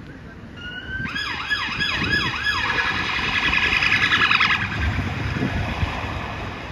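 Emergency vehicle siren: a short steady tone, then several quick up-and-down sweeps, then a fast warble that cuts off about four and a half seconds in. A low vehicle rumble follows.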